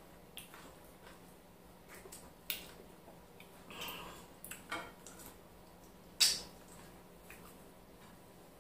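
Eating sounds from a person eating slimy ogbono soup and semolina with her fingers: scattered wet smacks and sharp clicks, the loudest a single sharp click about six seconds in.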